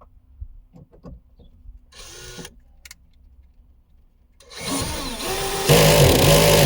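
Power tool motor running: a short burst about two seconds in, then a loud run of about two seconds near the end, its pitch wavering with speed as it drives in the second bolt or nut of the third brake light.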